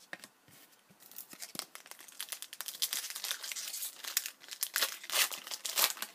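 Foil trading-card pack wrapper crinkling and tearing as it is handled and opened, a dense run of irregular crackles that picks up about a second in and grows louder near the end.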